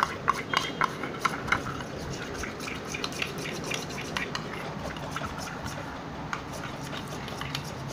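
Metal spoon stirring a thick mix of white glue and shaving cream in a steel bowl: the spoon scrapes steadily against the bowl with many light clicks, most frequent in the first second.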